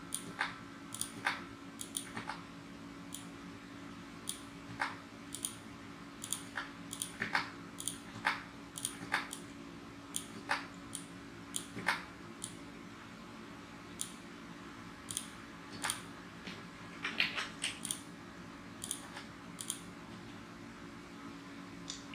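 Computer mouse clicks and Delete-key presses, single sharp clicks at irregular intervals with a quick run of them about 17 seconds in, over a faint steady hum.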